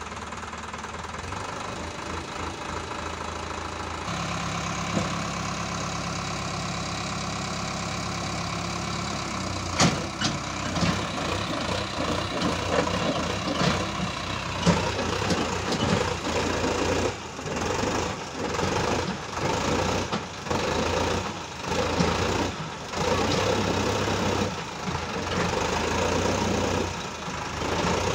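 Sonalika 750 III tractor's diesel engine running, its revs stepping up about four seconds in as the hydraulic tipper raises the trolley bed. From about ten seconds in come sharp knocks and an uneven, surging rumble as the load of soil is tipped out.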